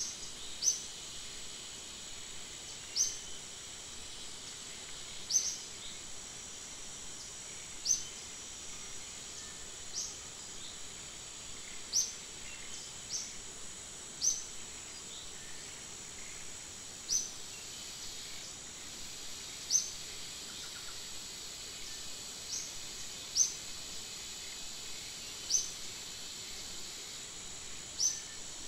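Forest ambience: a steady high insect drone, with a short, sharp rising bird chirp repeating every two to three seconds.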